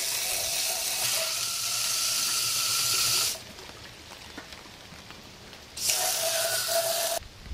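Water jetting from a garden hose spray nozzle into an empty metal wet/dry vacuum tank, rinsing it out. It hisses steadily for about three seconds, stops, then sprays again for a second and a half near the end.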